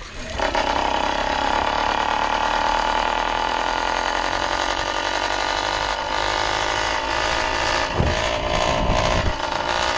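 Two-stroke reed-valve bicycle engine with an expansion pipe, not yet tuned, revving up hard about half a second in and then running steadily at high revs as the bike rides along. Wind buffets the microphone a few times near the end.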